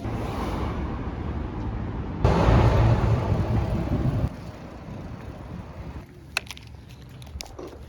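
Outdoor street ambience of traffic noise and wind on the microphone, in separate clips joined by abrupt cuts. The loudest clip sits about 2 to 4 seconds in; after a cut about 6 seconds in it is quieter, with a few short clicks.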